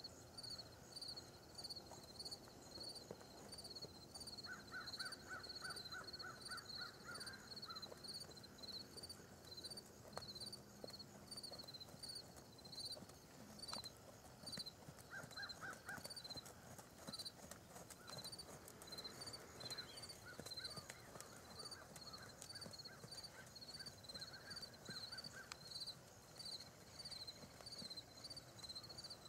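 Quiet country background: an insect chirping steadily, a few chirps a second, and a bird calling in short rapid runs three times.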